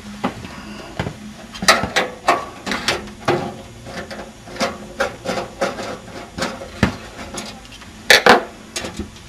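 A screwdriver clicking and tapping against the steel PC case and a card's bracket screw as the screw is worked loose. The short metallic clicks come irregularly, two or three a second, with a louder clatter near the end.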